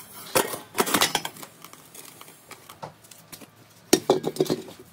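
Metal clattering and knocking as a sheet-metal pouring funnel and sand-filled buckets are handled during lost-foam casting. The knocks come in two clusters, about half a second in and again about four seconds in, the second as a bucket is tipped to dump the fresh aluminium casting out of its sand.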